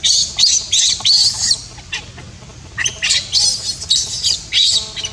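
Baby macaque crying: short, high-pitched squealing calls in quick succession, a run of them, a pause of about a second, then another run.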